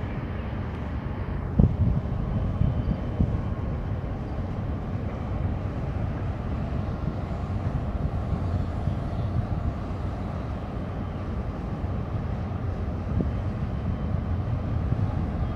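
Steady low rumble of the container ship YM Hawk passing close by as it sails out of harbour, mixed with wind on the microphone. A single brief knock about a second and a half in.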